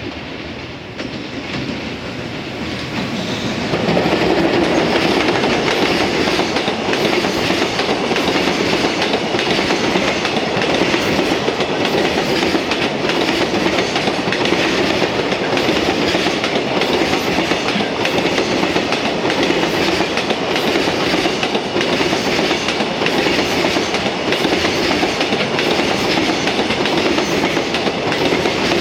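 Freight train hauled by an EF210 electric locomotive passing close by. The sound builds over the first four seconds, then holds as a long, steady run of wheels clattering over the rail joints as the wagons roll past.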